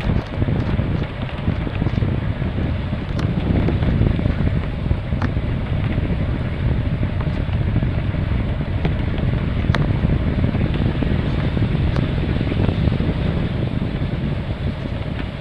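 Wind buffeting the microphone: a steady, gusty low rumble, with a few faint ticks.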